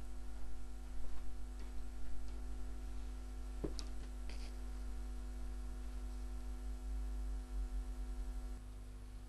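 Steady electrical mains hum with its evenly spaced overtones, with a few faint clicks and knocks in the middle as the camera is handled at close range. The low hum changes abruptly near the end.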